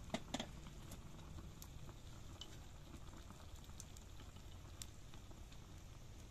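A pot of rice and vegetables simmering faintly, with scattered small ticks over a low steady rumble. Two sharp clicks come in the first half second.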